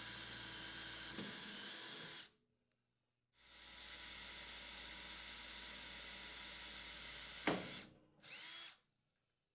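Milwaukee cordless drill with a 1/8-inch bit running steadily as it drills screw holes in the wall sleeve. The first run stops about two seconds in, and a second run starts about a second later. The second run ends with a sharp click near its end and is followed by a brief short whir.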